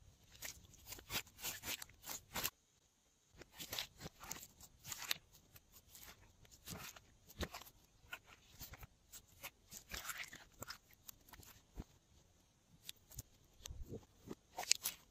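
Glossy slime being squeezed, stretched and folded by hand, giving irregular wet clicks, pops and crackles, with a brief pause about three seconds in.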